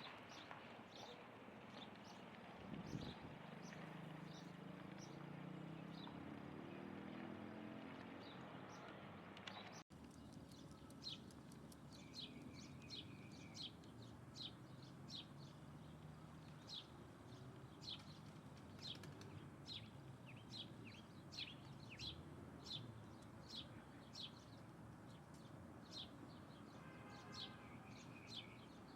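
Small birds chirping: short, high, falling calls repeated about twice a second, faint over a low background rumble, with a break in the sound about ten seconds in.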